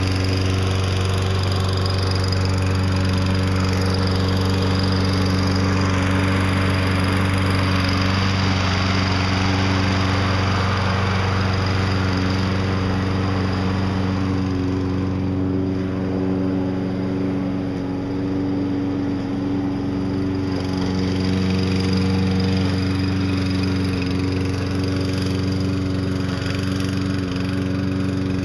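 Gas engine of a self-propelled walk-behind lawn mower running steadily at constant speed while the mower works as a snow plow. A rushing noise over the engine is stronger in the first half and eases off about halfway through.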